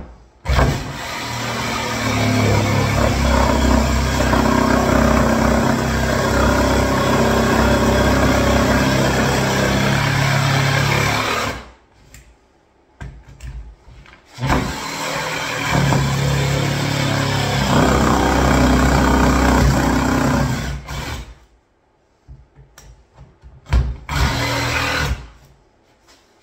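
Makita cordless jigsaw cutting through a kitchen worktop, running in two long stretches of about eleven and six seconds with a short stop between. A few short knocks follow near the end.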